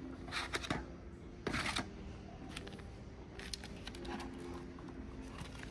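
White plastic storage baskets being handled and lifted from a stack on a store shelf: a few short plastic rattles and scrapes, the two loudest in the first two seconds.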